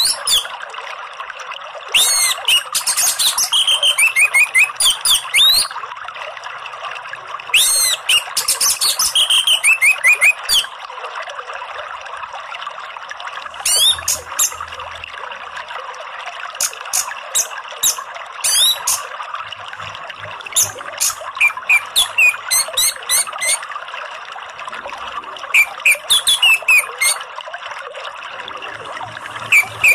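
Orange-headed thrush singing in repeated bursts of quick, high, sweeping notes a few seconds apart, over a steady rush of running water.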